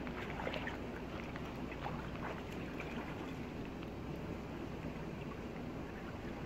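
Small, scattered splashes of water as people wade in a shallow canal and climb out, over a steady outdoor noise.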